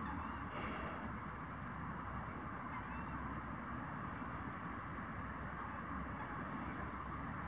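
Outdoor ambience: a steady low rumble with short, high bird chirps every second or so.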